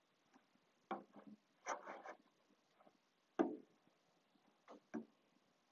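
Small handheld covering iron sliding and pressing on aircraft fabric along the edge of an inspection ring: a few short, soft scuffs and taps, the sharpest about three and a half seconds in.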